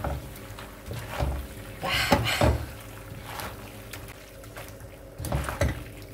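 Plastic spatula stirring and tossing sauced penne in a non-stick frying pan: wet scraping and soft clatter in several short bursts.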